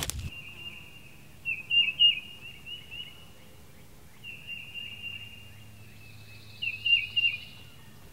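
Songbirds singing: a thin, steady high trill throughout, with two louder bursts of quick chirping notes, about two seconds in and again about seven seconds in.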